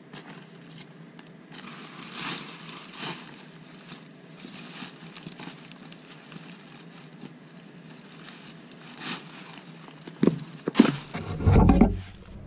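Plastic drawstring trash bag full of dry leaves rustling and crinkling as it is pressed down and tied shut, with louder crackling and bumps near the end as the full bag is lifted.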